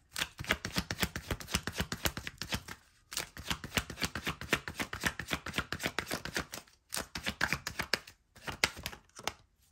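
A tarot deck being shuffled by hand: rapid flicking of cards, about ten a second, in four runs with short breaks between them.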